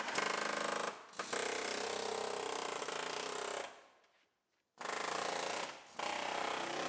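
Pneumatic air chisel hammering rapidly against a sheet-metal door skin, running in several bursts with short breaks between them.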